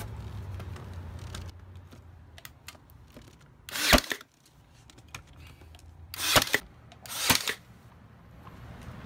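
A Ryobi AirStrike cordless nailer fires three times, each shot a sharp bang as it drives a nail through a reclaimed-wood plank into the cabinet side. The first shot comes about four seconds in and the other two follow close together near the end, with a few faint handling clicks before the first.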